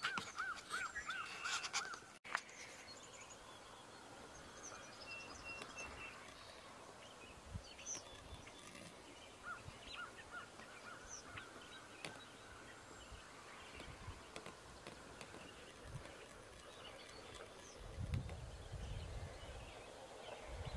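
Faint lake ambience with distant birds calling: a quick run of repeated call notes at the start, then scattered short chirps and calls. A low rumble comes in near the end.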